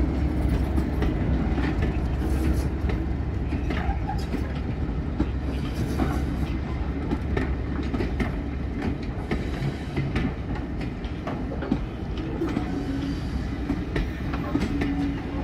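Passenger coaches rolling past behind a Class 37 diesel locomotive, wheels clicking over rail joints. The locomotive's English Electric V12 engine rumbles low at first and fades as it draws away.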